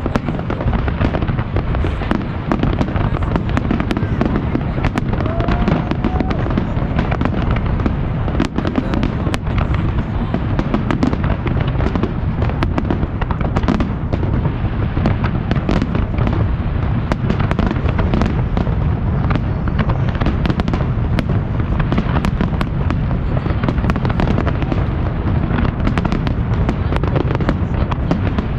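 Fireworks display in full barrage: a continuous deep rumble of overlapping booms with many sharp cracks and pops throughout.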